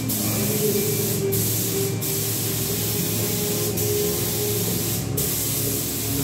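Gravity-feed spray gun hissing steadily as it sprays white gloss paint, the hiss dipping briefly four times.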